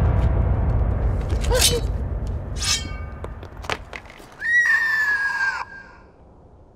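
Dramatic film score with a low drum rumble fading out over the first few seconds, with a few short sharp sounds during the struggle. About four and a half seconds in comes a high, drawn-out scream lasting about a second, falling slightly in pitch.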